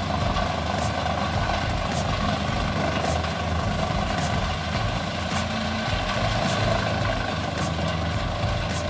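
Jensen A141XL wood chipper running under load as tree trunks are fed into it: a steady machine drone with faint sharp ticks about once a second.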